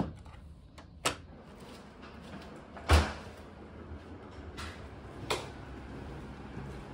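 A few sharp knocks and clunks, four in all, the loudest a heavy thud about three seconds in, like a door or cupboard being shut.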